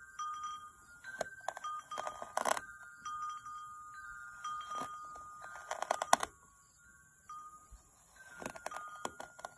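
Wind chimes ringing steadily, over which a knife slicing through kinetic sand makes several short crisp crunches, loudest about two and a half and six seconds in.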